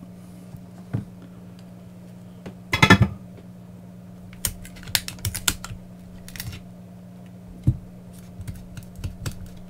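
Clicks, knocks and a short clatter of a soldering iron and a cylindrical lithium battery pack being handled and set down on a silicone work mat, the loudest clatter about three seconds in. A steady low hum runs underneath.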